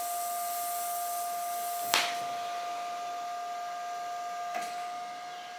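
DC TIG welder arc tacking steel: a steady hiss with a constant whine, broken by a sharp click about two seconds in and a smaller one near the end.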